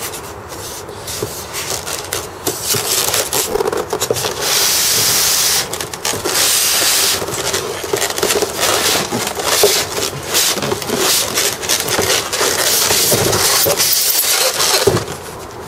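Polystyrene foam packaging and a cardboard box rubbing and scraping against each other as a foam-packed rifle is slid out of the box by gloved hands, with irregular rustles and knocks throughout.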